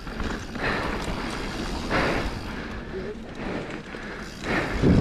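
Radon Jab enduro mountain bike rolling fast down a dry dirt and gravel trail: a steady rush of tyre noise and wind over the action camera's microphone, swelling a couple of times as the bike picks up speed over bumps.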